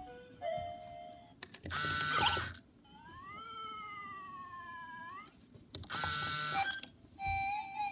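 Sega i-Dog robot dog toy making its sick-mood sounds: short electronic bleeps, then a long, wavering synthesized whine that slowly falls in pitch, like a pained whimper. Twice there is a short, loud, noisy burst as a hand pats its head.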